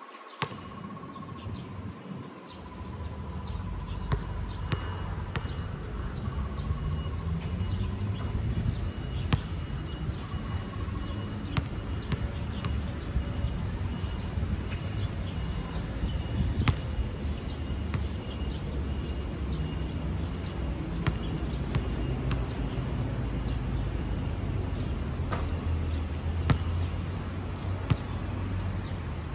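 Basketball bouncing on an outdoor court: sharp thuds at irregular intervals, the loudest every few seconds. Under them runs a steady low rumble, with birds chirping.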